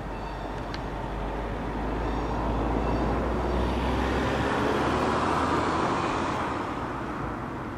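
Rumble of a departing passenger train's coaches mixed with road traffic at a level crossing, swelling to its loudest midway and then easing off.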